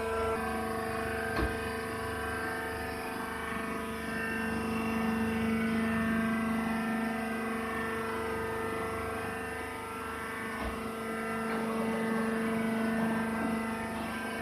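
Rice husk baler machine running, a steady droning hum with a constant pitch and overtones.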